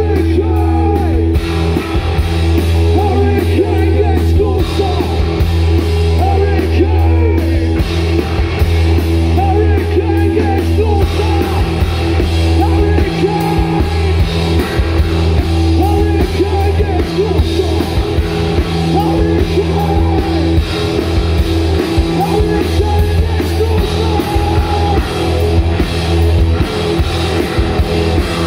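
Three-piece rock band playing live and loud: electric guitar, electric bass and drum kit, with a male lead vocal over them.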